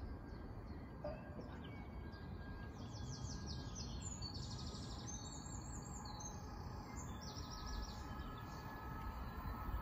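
Small songbirds singing in rapid, repeated high trills over a low steady outdoor rumble. Near the end a faint steady hum comes in from a Class 450 Desiro electric train still far off down the line.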